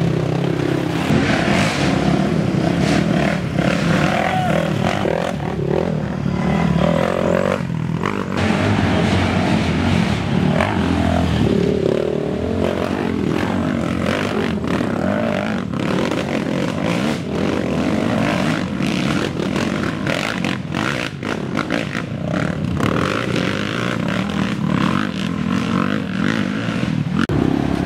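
Race ATV engines revving hard as quads climb a muddy, rutted trail one after another, the engine note rising and falling as riders work the throttle. Scattered short knocks and clatter run through it, heaviest in the second half.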